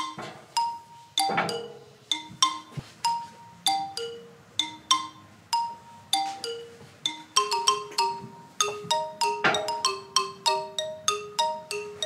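Light background music: a marimba-like mallet-percussion melody of short struck notes, each ringing briefly. The notes come faster after about seven seconds.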